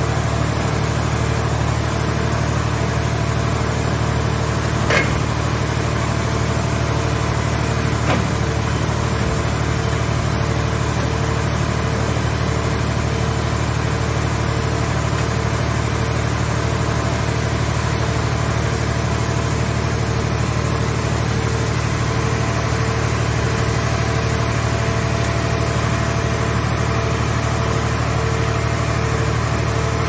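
Car scrap baler's hydraulic grab crane at work, its power unit running with a steady drone, with two brief knocks about five and eight seconds in.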